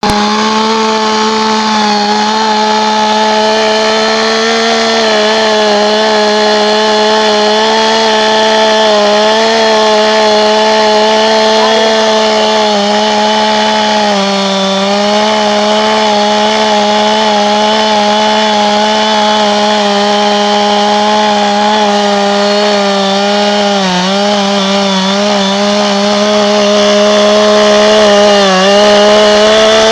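Chainsaw engine running steadily at high speed, its pitch dipping briefly a few times.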